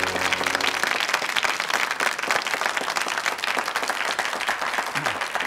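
Studio audience applauding, a dense patter of many hands clapping, with the last notes of theme music dying away in the first second. The applause thins out near the end.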